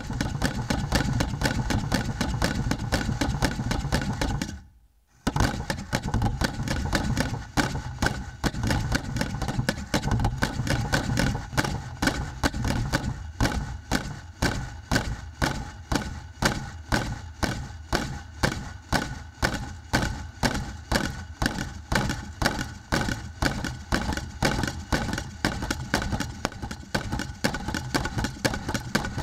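Modular Rhythm Machine: several servo-driven percussion boxes, their sticks striking the wooden boxes in dense, rapid rhythms over a steady hum. About four and a half seconds in, the playing cuts off for under a second, then resumes. From about halfway through, the strikes settle into an evenly spaced pulse.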